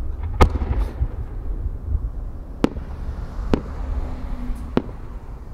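Fireworks display: four sharp bangs of aerial firework shells, spaced about one to two seconds apart, over a low steady rumble.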